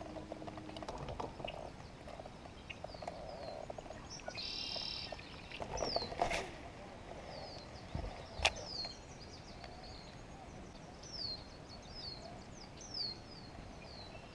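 Small birds chirping, a string of short, high notes that each fall in pitch, with a brief buzzy call just before they start. Two sharp clicks in the middle, the second the loudest sound.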